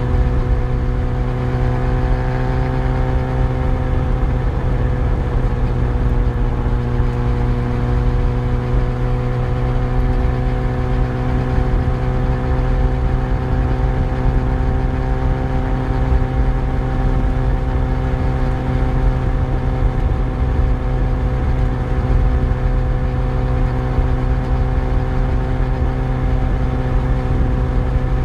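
Yamaha FZ1 motorcycle's inline-four engine running at a steady cruise, its note holding nearly constant with a slight rise and dip in pitch a few seconds in, over a continuous low rumble.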